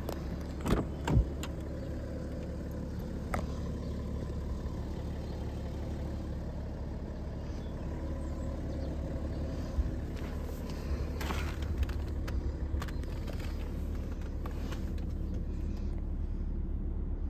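BMW 730Ld's 3.0-litre six-cylinder diesel idling steadily. A door handle and door give two sharp clicks about a second in, and a few softer knocks and clicks follow later.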